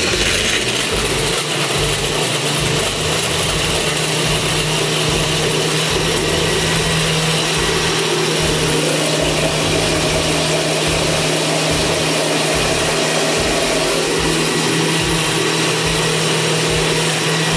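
Countertop blender running at a steady speed, crushing ice and fruit into a smooth slush. Its motor hum lifts slightly in pitch about halfway through and drops back later.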